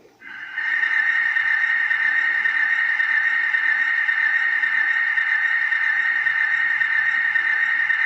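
Sound decoder of a model M62 diesel locomotive playing through its small onboard speaker. A loud, steady, tinny sound with no deep bass starts about a quarter second in and holds unchanged.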